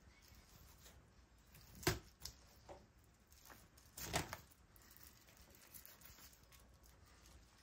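A few brief crinkles and rustles of the paper wrapping under a raw chicken breast as it is handled and trimmed with a knife. The two loudest come about two seconds in and about four seconds in, with smaller ones between.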